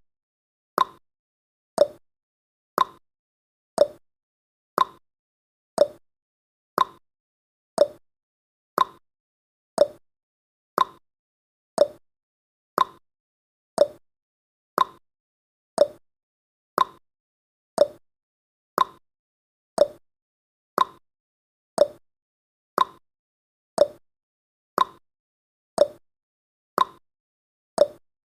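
Countdown timer's tick sound effect: one short, sharp tick every second, steady and evenly spaced.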